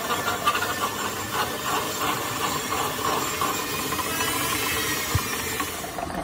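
Metalworking in a shop: a steady rasping hiss of a tool working on steel.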